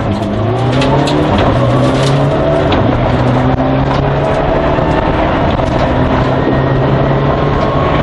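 Mitsubishi Lancer Evo 9 rally car's turbocharged four-cylinder engine at full throttle, heard from inside the cabin. Its note climbs and drops back several times as it goes up through the gears down a long straight.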